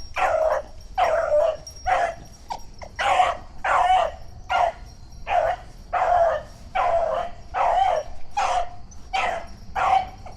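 A beagle giving tongue on the chase of a jumped rabbit: a steady run of short, pitched barks, about three every two seconds.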